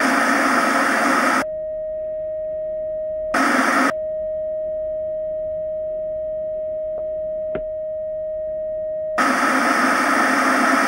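Intro sound effect of TV static: three bursts of loud hiss, the third starting near the end, with a steady electronic tone like a dial tone filling the gaps between them. Two faint clicks come about two-thirds of the way through.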